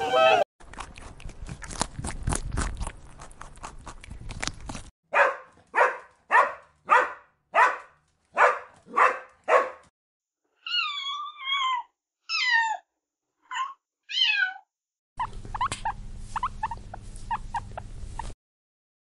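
A string of short animal-call clips cut together. First a stretch of scuffling, clicky noise, then about nine short calls evenly spaced a little over half a second apart, then four wavering high-pitched calls, then more noise with a low hum.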